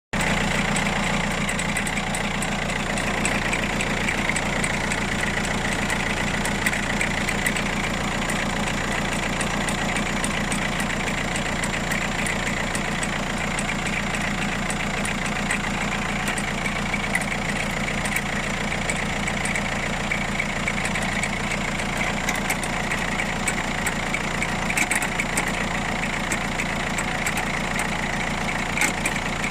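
Citroën C3 Picasso's 1.6 HDi four-cylinder turbodiesel idling steadily, with scattered sharp ticks over the running; the owner takes it for a suspicious, abnormal engine noise.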